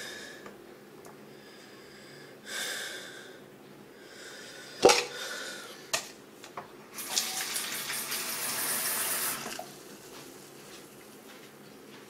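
Chrome bathroom tap worked by hand: a breathy rush, a sharp knock about five seconds in, a smaller click, then about two and a half seconds of hissing from the spout that stops abruptly, like a tap giving only a short spurt.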